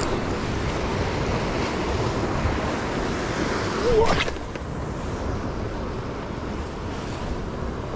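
Ocean surf washing against the rocks, with wind buffeting the microphone. About halfway through, a brief wavering sound glides sharply upward in pitch.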